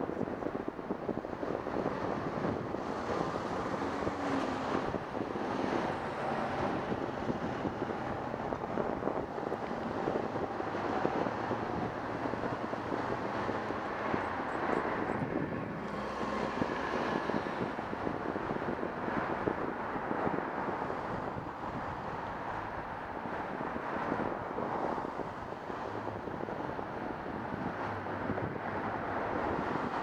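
Wind buffeting a bicycle-mounted camera's microphone while riding, mixed with road noise and passing car traffic; a vehicle's engine hum comes through as a pickup passes close about halfway through.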